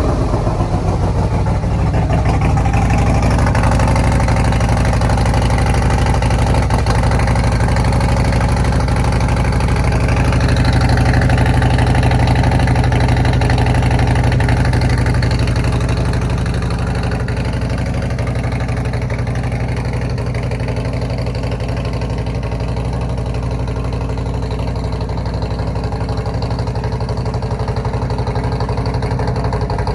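Harley-Davidson Road Glide's 131-cubic-inch V-twin idling just after a cold start. It runs a little higher around ten to fifteen seconds in, then settles to a steadier, lower idle.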